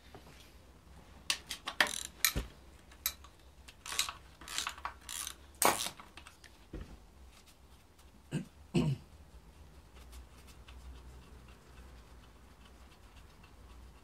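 Ratchet wrench clicking in short irregular bursts with a few metallic knocks, undoing the nut that holds the engine's dipstick tube. The clicks cluster in the first six seconds, with two more a little before the nine-second mark.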